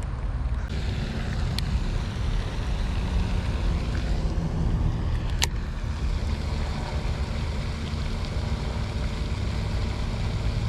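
Steady low rumble of wind buffeting the microphone, with two sharp clicks, one about a second and a half in and one about five seconds in.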